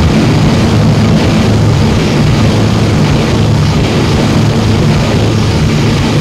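Power electronics noise music: a loud, unbroken wall of distorted noise over a steady low droning hum.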